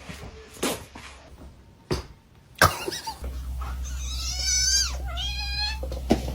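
A cat meowing twice in long, drawn-out calls, preceded by a few sharp knocks, with a low steady hum behind.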